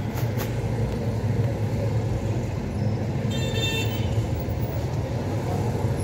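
Steady low motor-vehicle engine rumble, with a short high-pitched tone, like a toot, about three and a half seconds in.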